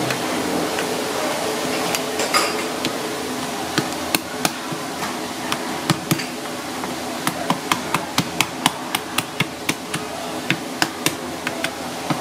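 Kitchen knife chopping through a cooked spanner crab's shell onto a hard surface: a run of sharp, irregular knocks that come faster in the second half. A steady hum runs underneath.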